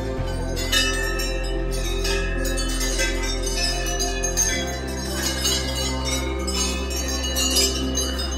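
Small temple bells struck again and again in quick, overlapping rings as hands run along a row of them, over background music with held low notes that change twice.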